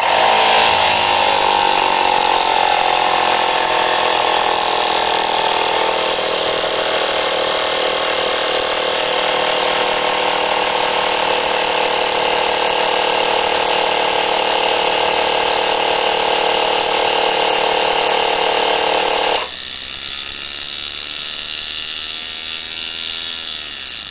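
Half-scale Elmer's "Tiny" miniature single-cylinder engine running fast on compressed air: a rapid, steady mechanical whirr with a hiss of exhaust air, starting abruptly. About three-quarters of the way through it gets quieter and the hiss thins, and it stops at the very end.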